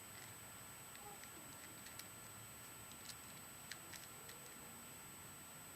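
Faint, scattered clicks of a Rubik's Cube's layers being turned, over a steady low hiss.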